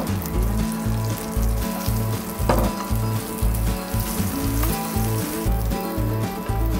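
Egg-battered beef slices (yukjeon) sizzling as they fry in oil in a pan. A steady beat of background music, with pulses about twice a second, runs under the sizzle.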